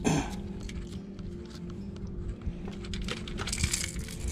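Hooks and fishing line being handled while a flathead catfish is unhooked: scattered light clicks and ticks over a steady low hum. It opens with a brief loud sound that falls in pitch.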